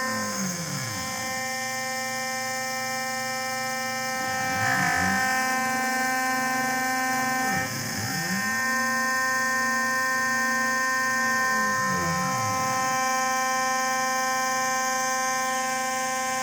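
Homemade CNC column milling machine running while milling aluminium: a steady whine of many fixed tones, with lower stepper-motor tones that sweep down and back up every three to four seconds as the axes slow, reverse and speed up again.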